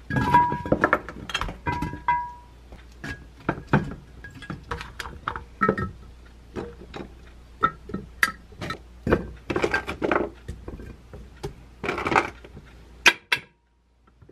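Pieces of cut vegetables dropped and packed into a glass jar: a run of clinks and thunks against the glass, which rings briefly in the first couple of seconds.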